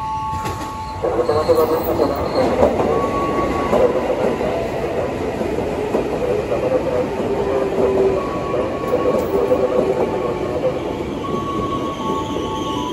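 Tokyo Metro 6000 series electric commuter train (ex Chiyoda Line, running as a KRL Commuter Line set) rumbling along the station platform, the noise setting in loudly about a second in. A high wheel squeal joins near the end.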